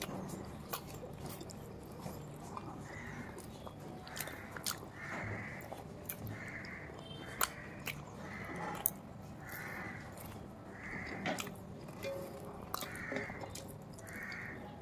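Close-up eating sounds of aloo paratha: the flatbread torn by hand and chewed, with scattered sharp clicks and crackles. A short sound repeats about once a second in the background from a few seconds in.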